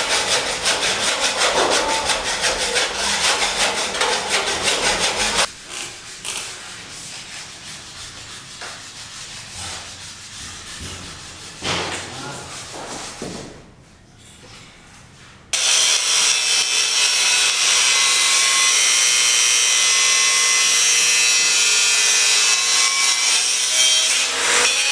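Construction tool work in separate clips: about five seconds of fast, even rasping strokes like sawing or sanding, then a quieter stretch with a few knocks, then, from about two-thirds of the way in, a loud, steady high hiss with faint steady tones.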